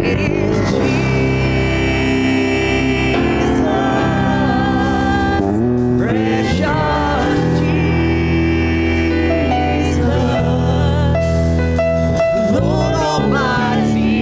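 Live church worship band playing a slow gospel song, keyboard, acoustic guitar, congas and drum kit, with singing in long, wavering notes.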